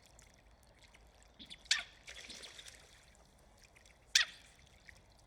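Quiet water ambience, faint trickling, with two brief sharp sounds about two and a half seconds apart.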